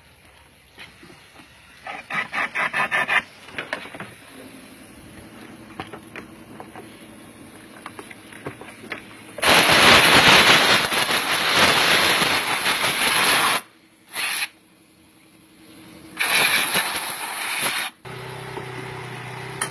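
A quick run of clicks, then a high-pressure water jet hissing loudly in two long bursts with a short one between, as the brake system is flushed with water. Near the end the hiss stops and a car engine starts running at idle.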